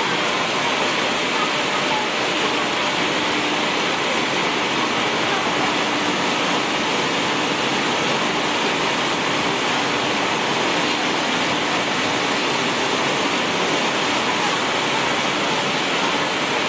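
Pellet mill running, making a steady, even rushing noise with a faint hum that comes and goes.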